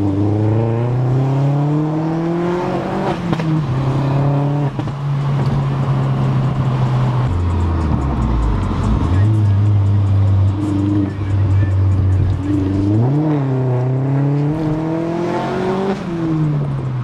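Car engine heard from inside the cabin, pulling up through the revs and dropping at a gear change about three seconds in, then cruising at steady revs before revving up and easing off again near the end.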